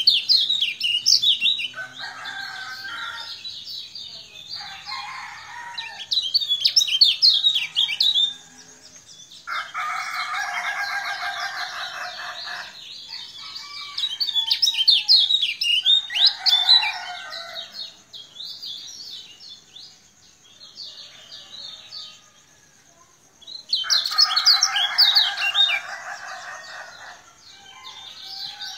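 Caged kecial kuning, a small white-eye from Lombok, singing in repeated bursts of rapid, high twittering notes. Between the bursts come several lower, longer calls from another bird, the longest about two and a half seconds.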